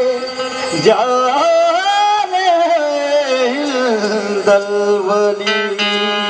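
Naat sung in qawwali style: harmonium drone and melody under a man's voice singing a long, gliding, ornamented line.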